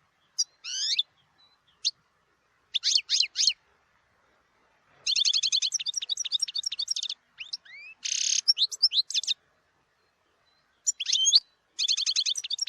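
European goldfinch singing: short bursts of quick twittering notes, then a longer run of rapid chattering trills about five seconds in with a short buzzy note in the middle, and more twittering near the end.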